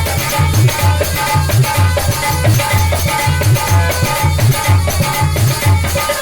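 Instrumental break in a Bundeli devotional song: a fast, steady low drum rhythm under constant jingling shaker-like percussion and held melody tones.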